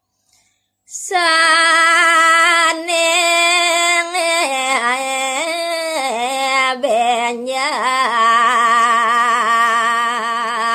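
A woman singing Balinese pupuh verse solo and unaccompanied, starting about a second in. She holds long notes, bends them with melismatic ornamental turns, and sings the final long note with a wavering vibrato.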